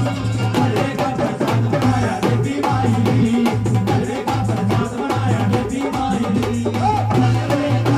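Live Hindu devotional jagran (bhajan) music: a steady, fast drum beat under sustained instrumental tones, without clear words.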